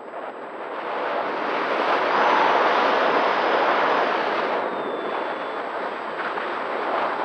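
Wind rushing and buffeting over the microphone of a camera mounted on an RC flying wing in flight, swelling about two seconds in and easing after four seconds. A faint high whine from the plane's electric motor slides in pitch underneath.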